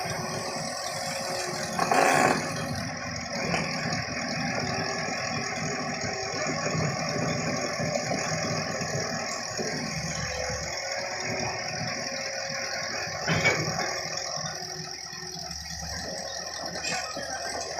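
An engine running steadily under a rattling noise, with a louder knock about two seconds in and another near thirteen seconds in.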